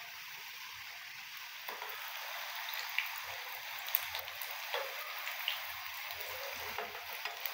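Strips of namak paray dough deep-frying in hot oil: a steady sizzle with scattered small pops and crackles, a little louder from about two seconds in.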